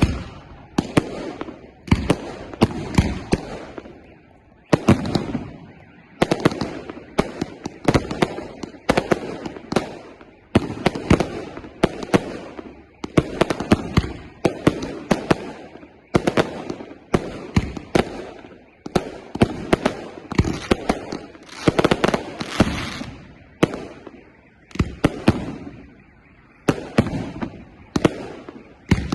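Fireworks display: a steady run of firework bursts going off one after another, about one to two bangs a second, each with a short echoing tail.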